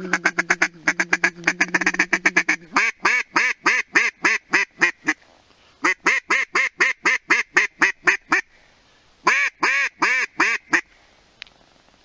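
A hand-blown duck call: a fast run of short notes over a steady low drone for about three seconds, then three series of loud, evenly spaced quacks with short breaks between them.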